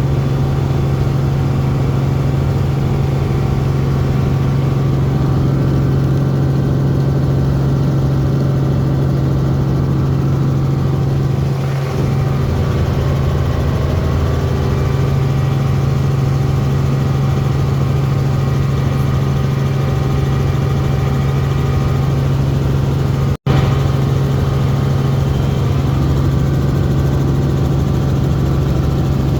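Helicopter engine and rotor noise, a steady loud drone with a strong low hum, heard from a passenger's position on board. The sound cuts out for an instant about two-thirds of the way through.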